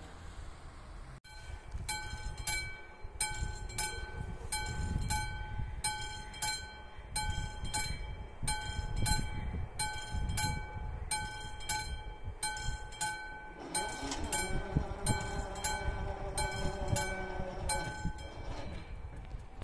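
Classic mechanical warning bell of an AŽD 71 level crossing starting about a second in and ringing at a steady beat, about three strokes every two seconds, signalling an approaching train. From about two-thirds of the way through, the barrier drive hums, rising then holding steady, as the booms lower. Bell and hum stop together near the end.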